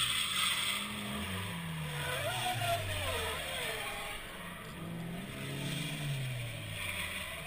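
Drift car engine revving hard and dropping back, over and over, as the car slides through the corner on the throttle. A brief wavering high note comes about two seconds in.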